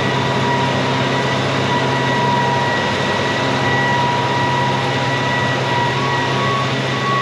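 Combine's diesel engine idling steadily with a low hum and a thin high whine, which steps slightly higher near the end.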